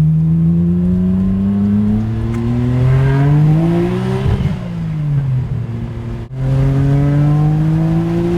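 Nissan Skyline GT-R's RB26DETT twin-turbo straight-six pulling hard under boost, revs climbing for about four seconds, easing off, then climbing again after a brief break about six seconds in. It runs cleanly under boost without the tip-in misfire, now on new HKS ignition coils.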